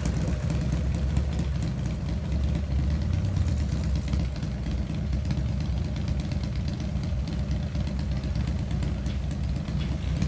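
Vehicle engine idling nearby, a steady low rumble with no revving.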